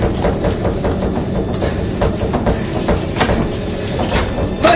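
Steady loud rumble with irregular clattering clicks throughout.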